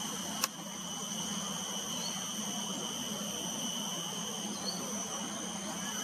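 Steady ambient hiss with a continuous thin, high insect drone, broken by a single sharp click about half a second in.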